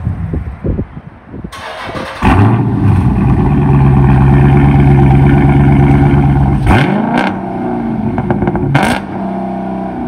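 2016 Dodge Charger 392's 6.4-litre HEMI V8 through an exhaust with DynoMax Race Bullets. It idles, is revved up about two seconds in and held at steady high revs for about four seconds, then drops back to idle, with one short blip of the throttle near the end.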